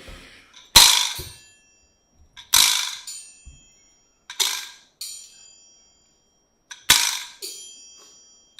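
Five sharp hand-made foley hits, struck objects that each ring out briefly with a high tone before dying away, spaced about one to two seconds apart.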